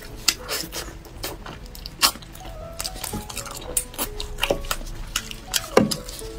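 Close-up eating sounds: wet chewing, sucking and smacking as braised meat is gnawed off the bone, with many sharp clicks, the loudest near the end. Soft background music with held notes runs under it.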